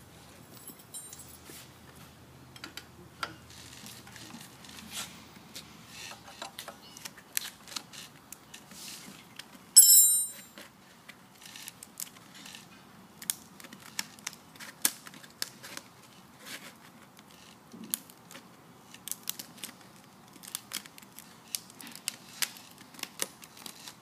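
Sandpaper being pressed and worked around a floor drum sander's drum and wedged into the drum's slot: scattered crackles, rustles and small clicks, with one loud sharp clink about ten seconds in.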